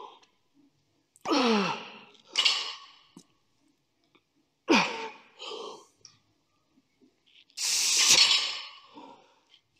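A man's hard exhales and grunts as he rows a heavy barbell. There are about five strained breaths a second or two apart, some with a grunt that drops in pitch, and the longest and loudest comes near the end.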